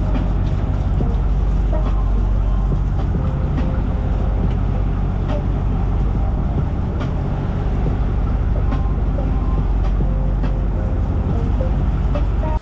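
Fishing boat's engine running steadily underway: a loud, even, low drone.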